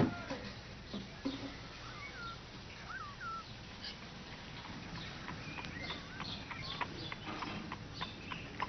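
A cat in a wooden puzzle box: a few short, high chirp-like calls, then a run of light clicks and knocks as it paws and noses at the box and its latch.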